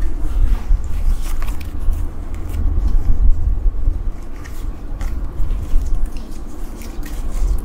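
Muffled rubbing and scraping as a full-face motorcycle helmet is worked down over the head and its chin strap adjusted, with a few short clicks, over a steady low rumble.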